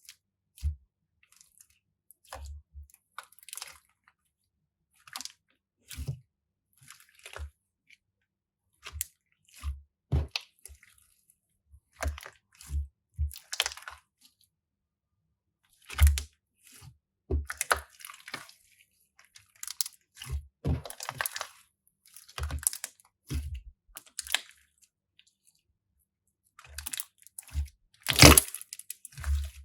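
Crunchy slime being squeezed, pressed and worked by hand, giving irregular crackling crunches and squishes in bursts with short pauses between. The loudest crunch comes near the end.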